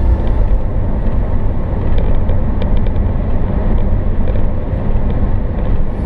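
Steady in-cabin road and engine noise from a car driving at highway speed: a continuous low rumble with tyre and wind hiss above it.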